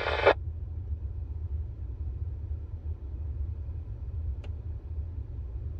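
A brief burst of static from a mobile two-way radio's speaker as it drops back to receive after a transmission, then a steady low rumble of the truck cab with the engine running. A faint click about four seconds in.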